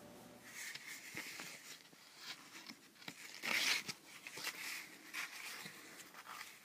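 Rustling and crinkling handling noises in uneven bursts, the loudest about three and a half seconds in.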